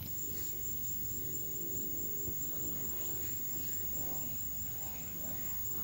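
Quiet room tone: a steady low hiss with a faint high whine and a few faint, indistinct sounds.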